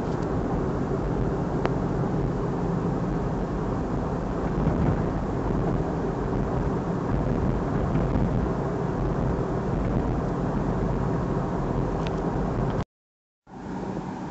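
Road noise inside a moving car: a steady low rumble of engine and tyres, with a few faint clicks. The sound drops out for about half a second near the end, then resumes a little quieter.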